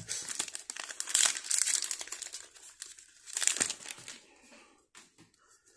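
Foil wrapper of a Pokémon Vivid Voltage booster pack crinkling as it is torn open by hand, in bursts of crackling over the first four seconds, then a few faint taps as the cards come out.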